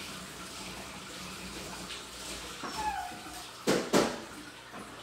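Steady running-water noise of the aquarium's filter and aeration bubbles. About three and a half seconds in, two short, loud sounds come in quick succession, a third of a second apart.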